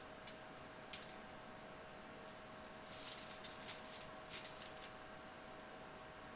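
Faint crinkling of aluminium foil and light scraping as a small knife scores slits into bread dough, in a few short scratchy bursts about three to five seconds in.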